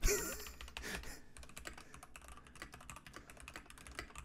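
Typing on a computer keyboard: a quick, irregular run of keystroke clicks. It opens with a brief breathy sound in the first second.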